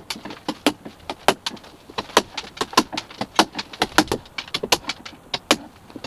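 A chisel being struck to knock the wooden screw plugs off flush with sapele planking: a quick, irregular run of sharp knocks, several a second.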